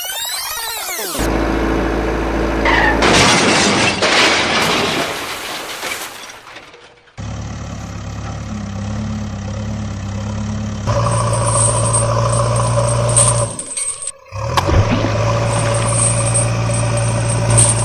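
Edited-in sound effects: a brief whoosh, then a crash of breaking and shattering a few seconds in, followed by a truck engine running steadily that grows louder about halfway through.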